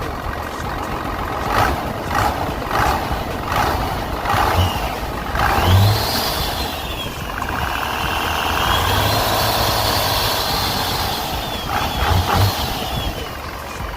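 12-valve Cummins diesel engine running and being revved, with a high whine that rises and falls twice as the revs climb and drop. The exhaust manifold leak has just been sealed with new MLS gaskets.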